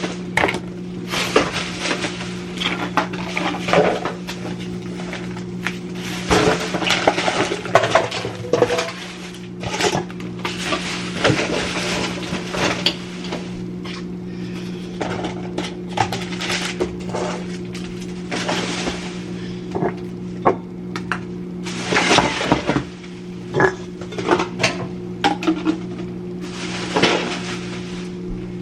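Dishes, food containers and shelves clattering and knocking irregularly as a refrigerator is cleaned out, over a steady low hum.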